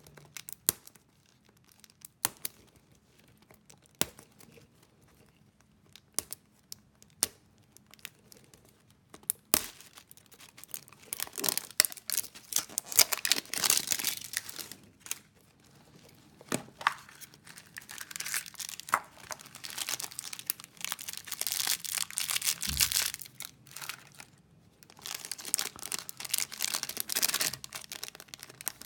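Crinkling and rustling of a surprise egg's plastic wrapper and the small plastic bag inside as the egg is unwrapped and opened by hand. The first third holds only scattered sharp clicks of the plastic capsule being handled; the crinkling runs in two long stretches after that, with a soft thud between them.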